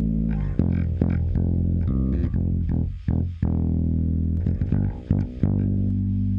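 Electric bass guitar playing a line of plucked, sustained notes, cut off abruptly at the end.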